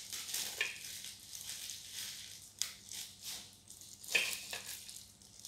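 Thin disposable plastic gloves crinkling and leafy greens rustling as hands pick through the stems, in irregular short scrunches, the loudest about four seconds in.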